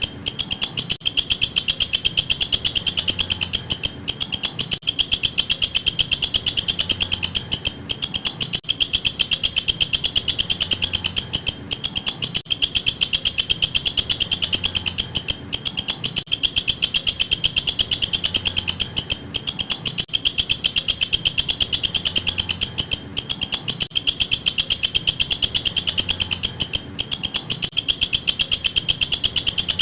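Walang kecek insect calling: a loud, continuous high-pitched trill of very fast clicking pulses, broken by short pauses every three to four seconds.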